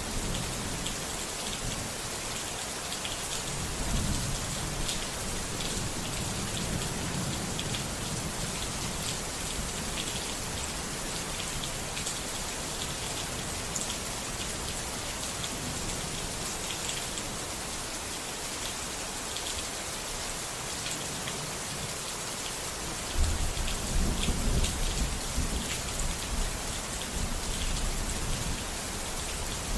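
Steady rain falling on a surface, with low rumbles of thunder; a louder roll of thunder breaks in about three quarters of the way through.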